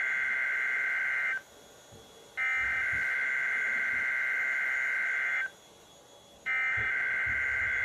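NOAA Weather Radio SAME (Emergency Alert System) header, sent as part of a Required Weekly Test: a harsh, buzzy two-tone digital data burst. One burst ends about a second and a half in. A full burst runs for about three seconds after a one-second gap, and after another one-second gap the next burst starts.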